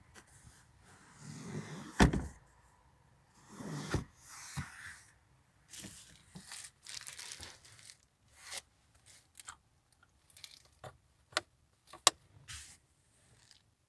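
Handling noise inside a pickup's cab: stretches of rubbing, a heavy thump about two seconds in and a lighter one about four seconds in, and scattered clicks, one of them near the end from a seat-back release lever being pressed.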